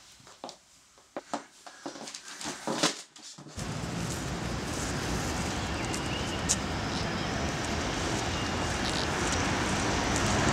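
Soft rustles and small clicks of movement in a quiet room. About three and a half seconds in, a cut brings in steady city street noise with passing traffic, which swells a little near the end.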